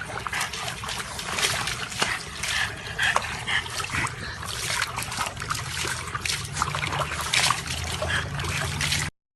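Water splashing and trickling in irregular strokes, cutting off suddenly near the end.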